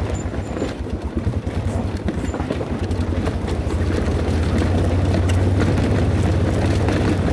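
ATV engine running as it rides along a rough dirt and gravel trail, with a fast, uneven pulsing that settles into a steadier, slightly louder hum about halfway through.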